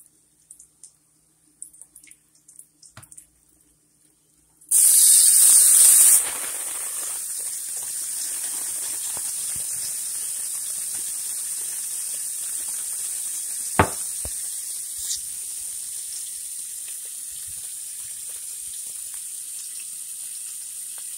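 Food laid into a hot, oiled frying pan: a loud burst of sizzling about five seconds in that settles within a couple of seconds to a steady frying sizzle. One sharp knock partway through.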